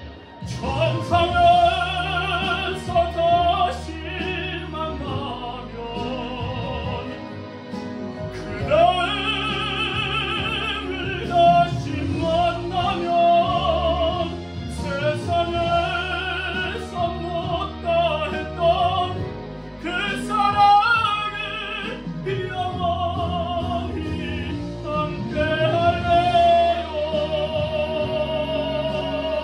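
A man singing a slow ballad in an operatic, classical-crossover voice with strong vibrato, over an instrumental accompaniment.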